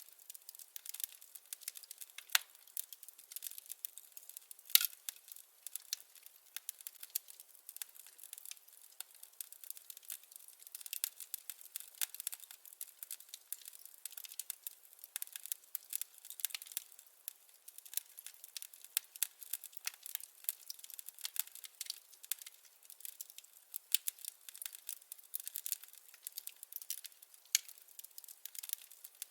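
Firewood crackling in a fireplace: a steady scatter of sharp snaps, several a second, with a few louder pops, the loudest about five seconds in.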